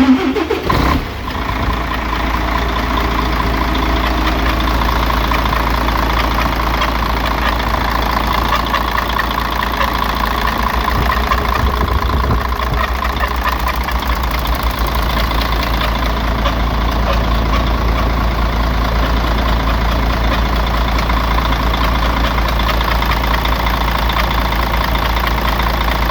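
Mercedes-Benz Axor's OM 457 inline-six diesel engine starting, catching within the first second or two, then idling steadily. Through the idle runs an unexplained grinding noise that the owner is trying to identify.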